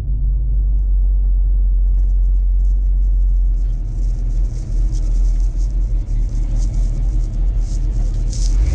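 Car driving on the road, heard from inside the cabin: a steady low engine and drivetrain rumble with tyre and wind hiss building from about two seconds in. Right at the end the engine note steps up.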